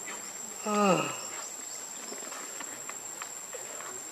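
Steady high-pitched insect trill throughout, with one short voiced call falling in pitch about half a second in.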